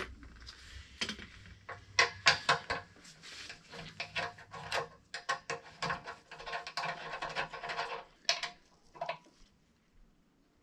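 A spanner clicking and clinking against a metal fitting on an air compressor's pressure switch as the fitting is worked loose, mixed with rustling from gloved hands handling the parts. The clicks come in quick irregular runs and die away near the end.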